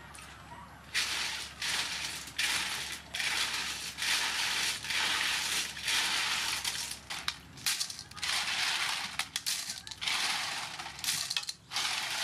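Snail shells clattering and grinding against each other as hands scrub a mass of live snails in an aluminium basin, in repeated strokes after a quieter first second.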